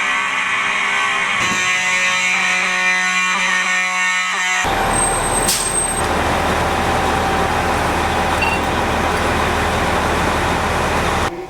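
Hotel fire alarm sounding, a loud steady blare of several pitched tones that shifts once early on. About four and a half seconds in it cuts abruptly to a steady noisy hum with a low drone beneath it.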